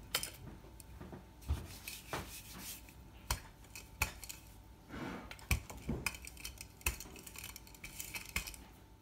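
Wooden rolling pin rolling out pastry dough on a wooden board, with irregular knocks and clatter as the pin rolls and bumps the board.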